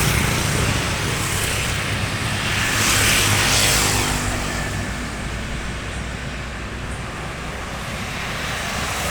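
A large tour bus driving past close by: engine and road noise swell to a peak about three seconds in, then ease off.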